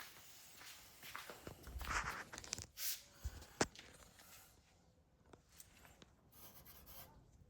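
Handling noises of an inverter unboxing: rustling with several sharp clicks and knocks in the first half, then fainter scattered ticks.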